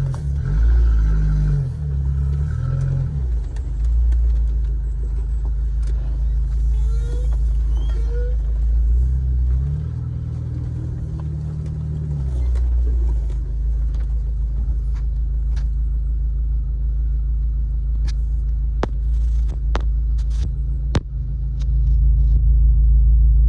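Jeep driving along a rough trail: a steady low engine and drivetrain rumble that swells and eases a few times, with several sharp clicks and knocks in the second half.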